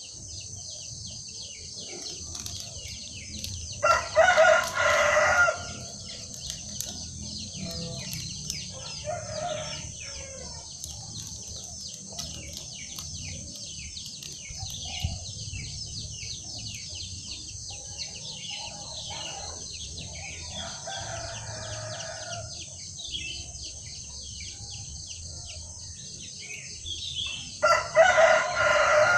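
A rooster crowing loudly twice, about four seconds in and again near the end, each crow lasting about a second and a half, with a fainter crow in between. A steady high-pitched buzz runs underneath.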